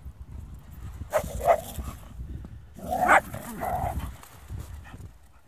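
A dog barking a few times, in two short pairs about a second and three seconds in.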